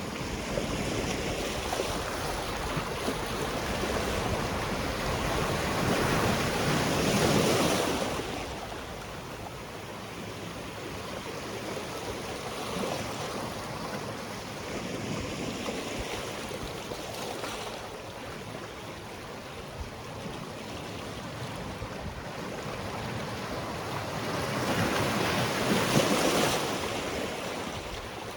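Sea waves washing onto a rocky shore, a steady wash of surf with two larger waves swelling and breaking, one about seven seconds in and one near the end.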